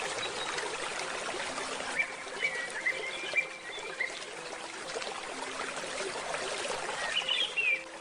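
Steady rush of flowing stream water, with small birds chirping over it in short runs of calls, about two seconds in and again near the end.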